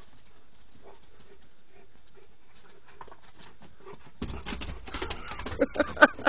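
A dog giving a few short whimpers near the end, over a stretch of noise that starts about two-thirds of the way in.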